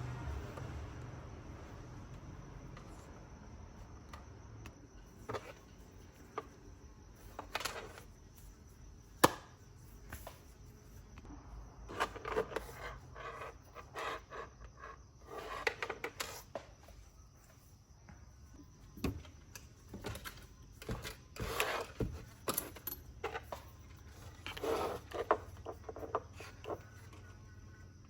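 Scattered clicks and taps with short bouts of rubbing and clatter from small hard objects being handled, busiest in two stretches in the middle and latter part.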